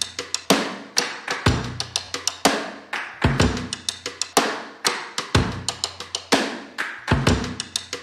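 Music with a steady drum beat: a strong hit about once a second with lighter strikes between.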